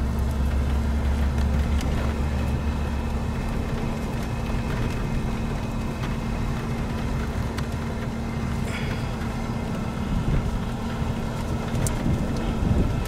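Vehicle engine idling with a steady low hum.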